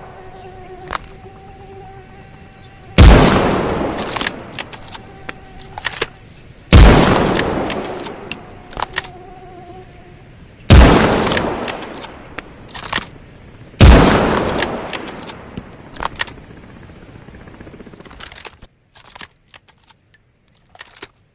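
Snider-Enfield breech-loading rifle (.577 Snider) fired four times, about three to four seconds apart, each shot loud and followed by a long echoing tail. Lighter metallic clicks come between the shots, and a faint steady hum lies under the first few seconds.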